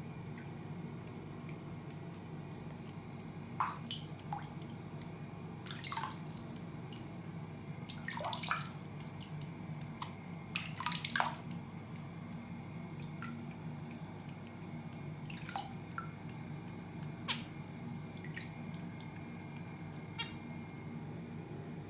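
Zebra finch giving tiny, sharp sneezes, the reaction to being sprinkled with water. There are several, a few seconds apart, the loudest about halfway through, over a steady low hum.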